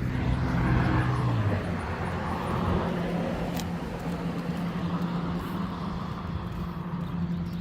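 A motor vehicle's engine and road noise, loudest about a second in and then easing to a steady low hum. A single sharp click comes about three and a half seconds in.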